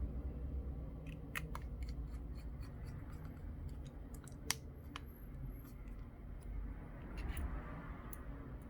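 Scattered small metallic clicks and taps of a precision screwdriver and tiny screws as screws are driven back into a smartphone's frame during reassembly, with one sharper click about halfway.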